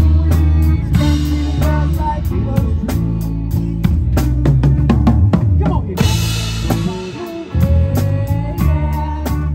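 Live band music with the drum kit up front: snare, bass drum and cymbal hits over bass guitar, with a dense run of drum hits in the middle. Near the end the sound drops briefly, then the full band comes back in.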